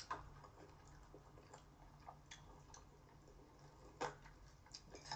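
Faint eating sounds from someone eating spicy cold buckwheat noodles with chopsticks: quiet chewing with scattered short, sharp clicks, the loudest about four seconds in, over a faint low hum.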